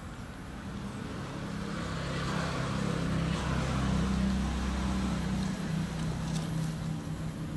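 Engine hum of a passing motor vehicle: a low steady drone that grows louder over the first few seconds, peaks about four seconds in, then eases off.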